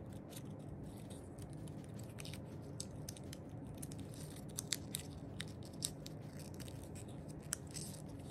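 Faint handling noise from a tiny paper miniature box being folded and fiddled with in the fingers: scattered light clicks and crackles, a few sharper ones about halfway through.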